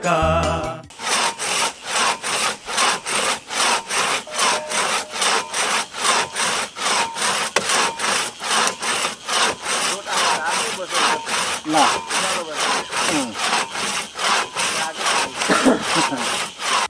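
Hand saw cutting through a wooden log in steady back-and-forth strokes, about two or three a second. The strokes start about a second in.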